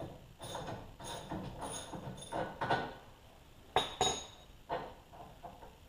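Hand ratchet clicking in short runs, about two a second, as a nylock nut is backed off the sway bar end link. A few sharper metal clinks follow about four seconds in.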